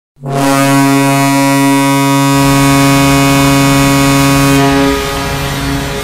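Tampa Bay Lightning arena goal horn sounding one long, loud, steady blast that cuts off about five seconds in.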